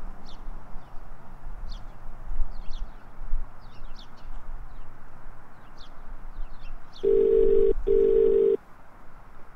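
Scattered faint bird chirps over a low outdoor rumble. About seven seconds in, a telephone ringback tone sounds twice in quick succession, two short steady tones: the called phone ringing, heard through the handset.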